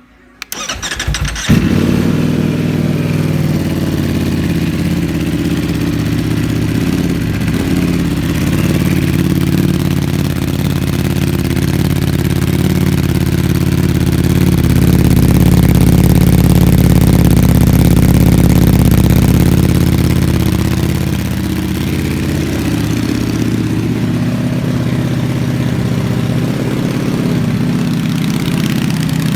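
Ducati Panigale V4S with an Akrapovič slip-on silencer being started: the starter cranks briefly and the V4 catches about a second and a half in with a sharp jump in level. It then idles loudly and steadily, rising to a faster, louder idle for several seconds past the middle before settling back.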